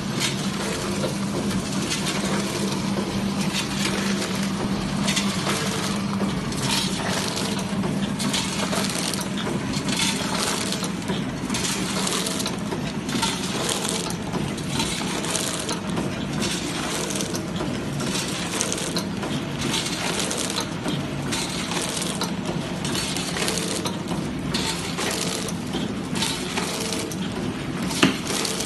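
Automatic vertical form-fill-seal packing machine running on corn chips: a steady mechanical hum under a continuous irregular clatter of chips and moving parts, with one sharper click near the end.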